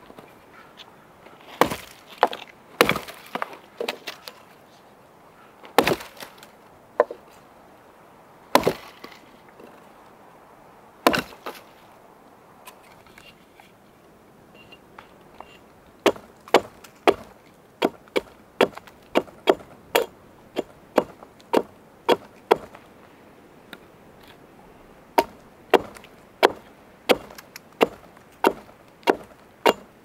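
An axe chopping into wood. At first it strikes a few single, irregular blows, then comes a steady run of light chops about two a second, a short pause, and another such run.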